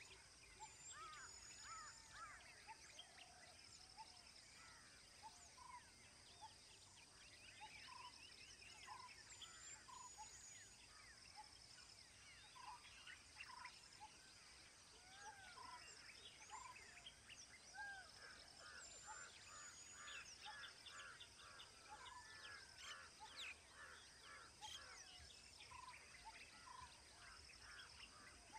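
Faint birdsong from several birds. One short call note repeats about once a second, a quick run of notes comes about eighteen seconds in, and there are high thin whistles, all over a steady faint high-pitched hum.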